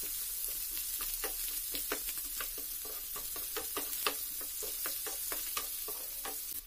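Chopped onions sizzling in oil in a nonstick frying pan while a spatula stirs them, scraping and tapping against the pan several times a second over a steady sizzle.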